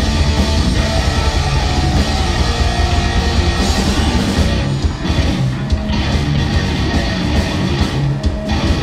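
Heavy metal band playing live: distorted electric guitar over a full drum kit with a heavy low end. About halfway through, the cymbals thin out and the guitar comes to the fore.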